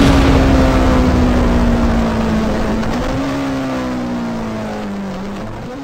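A sharp hit, then a car engine running, its drone slowly falling in pitch. The pitch steps up about three seconds in and again near the end, while the sound gradually fades.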